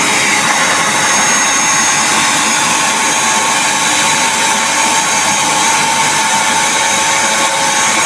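Wet-and-dry canister vacuum cleaner running steadily, a constant whine over the rush of air, as its floor nozzle sucks water up off a concrete floor.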